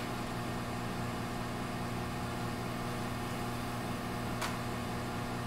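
Steady low hum of room background noise, with a faint click right at the start and another about four and a half seconds in.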